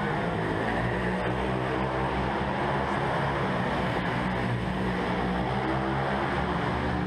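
125cc pitbike's single-cylinder four-stroke engine running at a steady speed close to the microphone, an even drone that holds its pitch throughout.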